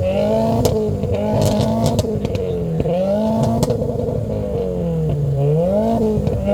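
Subaru WRX's turbocharged flat-four engine revved over and over, its pitch climbing and dropping in quick swells, with a few sharp cracks among the revs.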